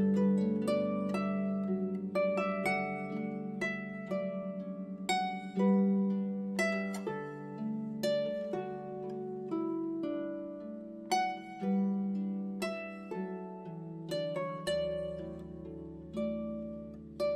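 Background music: a slow melody of plucked-string notes over held low bass notes.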